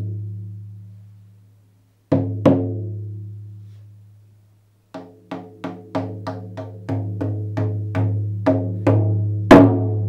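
Medium painted goatskin shamanic frame drum struck with a beater, each beat ringing out with a deep boom. A single beat and then a quick double beat are each left to ring, then a steady run of about three beats a second grows louder up to one last, loudest beat that rings on.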